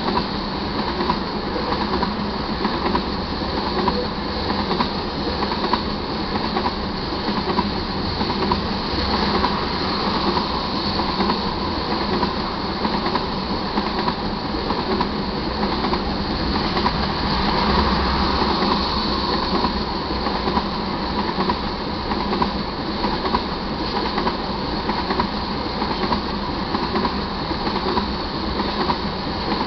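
Railroad tank cars of a crude oil unit train rolling past at speed: a steady, unbroken rumble of steel wheels on the rails.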